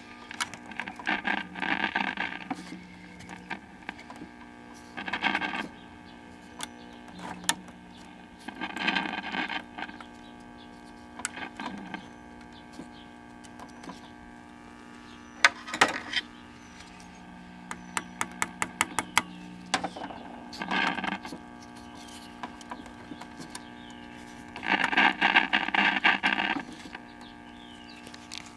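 Vintage tube AM radio humming steadily through its speaker, a hum that the restorer later puts down to an open filter capacitor. The hum is broken by repeated bursts of static and crackle lasting about a second each, with a quick run of sharp clicks partway through.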